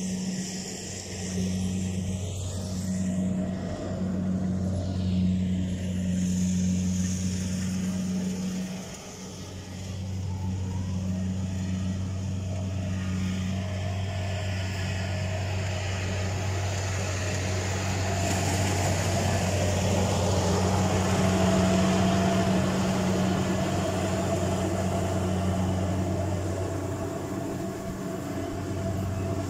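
Rice combine harvester's engine running with a steady drone, dipping briefly about nine seconds in.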